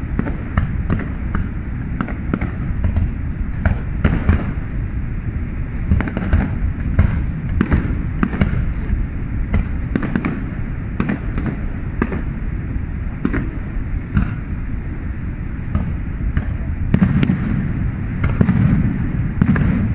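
Fireworks going off one after another, many sharp bangs and crackles over a steady low rumble, with a denser cluster of louder bursts near the end.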